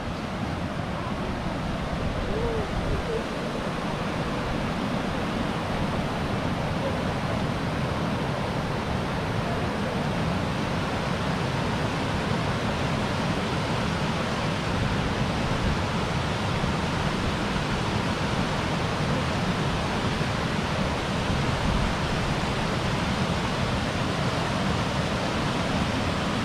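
Fast-flowing river rushing: a steady wash of moving water that grows a little louder in the first couple of seconds.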